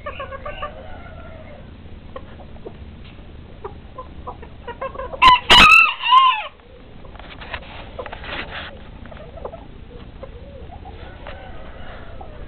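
A bantam rooster crows once, very loud and close, about five seconds in, with softer clucking from the other bantams before and after.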